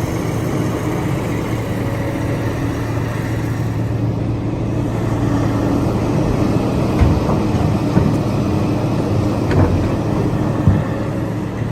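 The engine of a large vehicle running steadily with a constant low hum, with a few short knocks and clunks in the second half.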